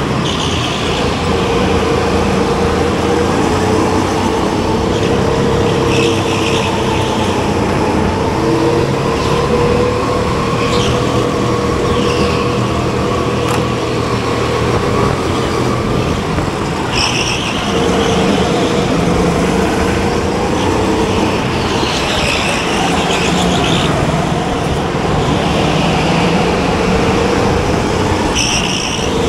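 Racing go-kart running at speed, its motor note rising and falling slowly, with brief high-pitched squeals every few seconds.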